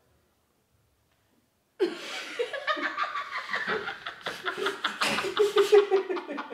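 Near silence, then about two seconds in people burst out laughing, in quick rhythmic chuckling bursts.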